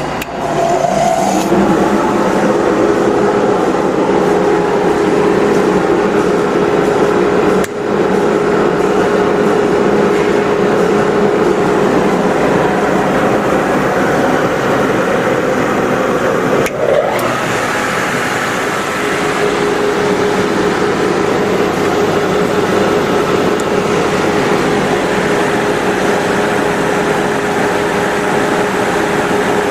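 Precision grinding machine for rubber stripper rings running steadily, a continuous hiss over a steady hum, with two brief breaks about 8 and 17 seconds in.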